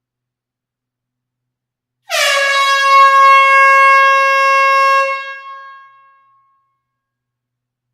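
Air horn sounding one long blast at a steady pitch, starting about two seconds in, held for about three seconds and then dying away.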